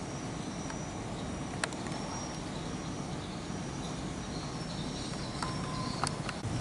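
Outdoor ambience: a steady low rumble with insects chirping high and faint, and a few sharp clicks.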